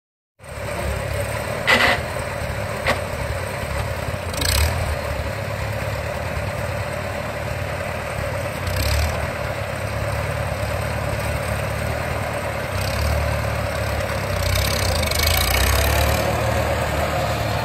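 International Farmall Super A tractor's four-cylinder gasoline engine running steadily as the tractor drives slowly, with a few sharp knocks about two to five seconds in and the engine growing somewhat louder near the end.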